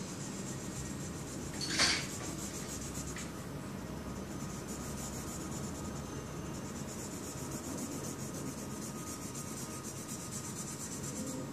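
Steady rubbing scratch of a drawing tool colouring in on paper by hand, with one short louder scrape about two seconds in.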